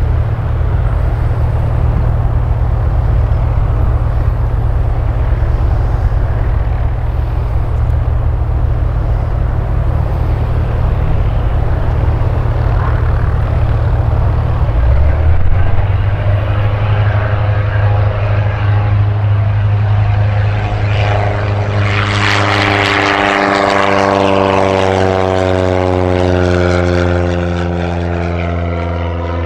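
SIAT 223 Flamingo light aircraft's four-cylinder Lycoming engine and propeller running at takeoff power through the takeoff roll and liftoff. About two-thirds of the way in, the plane passes close by and the engine note falls in pitch as it climbs away.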